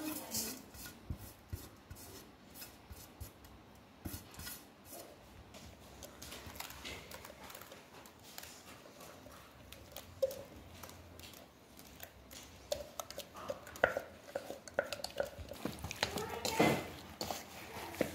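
A whole raw chicken being marinated in a stainless steel bowl: scattered light clinks and scrapes of a plate and hands against the metal, getting busier near the end as the paste is rubbed in by hand.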